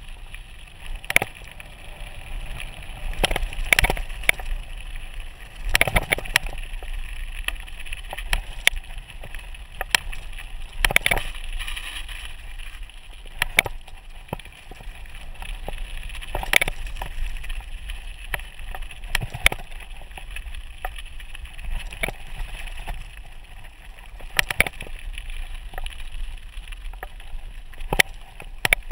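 Mountain bike rolling downhill on a loose gravel road: steady crunching of the tyres on gravel, with irregular sharp knocks and rattles as the bike jolts over bumps.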